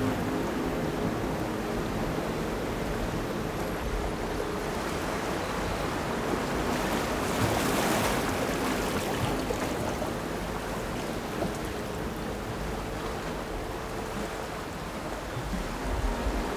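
Ambient electronic noise soundscape: a steady wash of hiss with faint held low drones, swelling slightly about halfway through.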